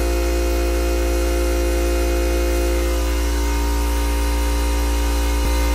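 Steady machine hum with a strong low drone and several steady tones, unchanging throughout.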